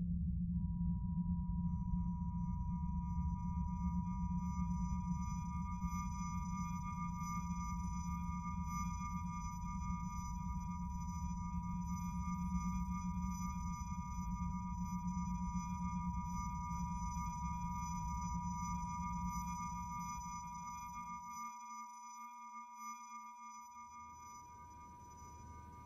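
Film sound design: a steady, high-pitched ringing tone, like ringing in the ears, held over a low rumble. The rumble cuts out about 21 seconds in and returns near the end as the whole sound fades down.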